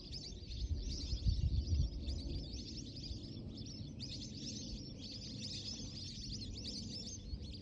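Many birds chirping at once in a steady chorus of short, high calls, over a low rumble that is strongest in the first two seconds.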